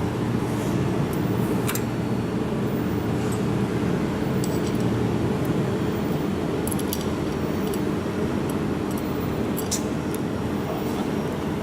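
Steady low hum of running machinery, with a few short sharp clicks about 2, 7 and 10 seconds in.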